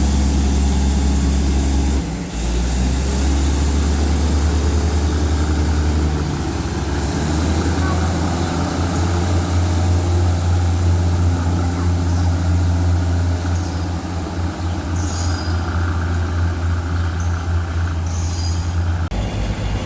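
Diesel locomotive engine of a passenger train running with a strong, steady low hum as the train pulls out, the engine note stepping a few times: about two seconds in, around seven seconds in and near the end.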